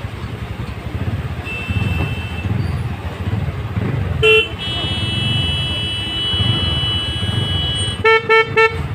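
A two-wheeler's engine running at low speed, with short electric horn beeps: one about four seconds in and a quick run of four near the end. A steady high-pitched tone sounds for about three seconds between them.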